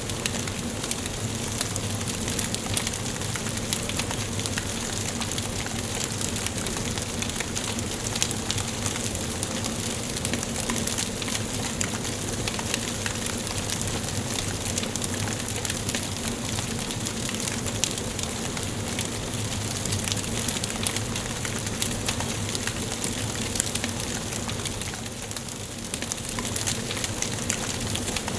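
Wood fire burning in a fireplace, a steady hiss with frequent small crackles and a few sharper pops.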